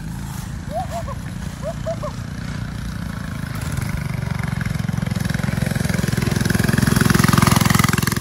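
Mini bike's small engine running, growing steadily louder as it approaches and peaking near the end before easing slightly.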